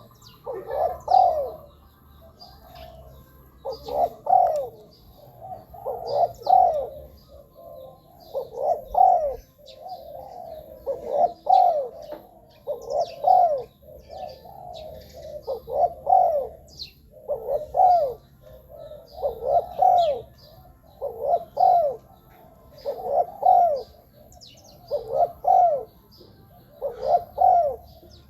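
Decoy spotted dove cooing: a short phrase of a few coos, repeated about every two seconds.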